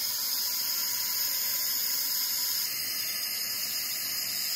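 Toilet tank fill valve running as the tank refills after the water supply is turned back on, a steady hiss of rushing water. The hiss drops slightly a little over halfway through.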